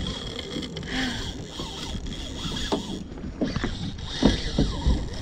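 Spinning reel cranked steadily as a hooked fish is reeled in, a high gear whir that breaks off briefly and resumes, over water slapping against the boat hull.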